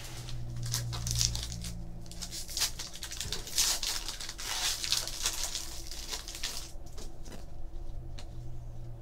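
Trading cards and their packaging being handled: dry rustling and crinkling as cards are slid and shuffled, swelling and fading in several stretches, over a faint low hum.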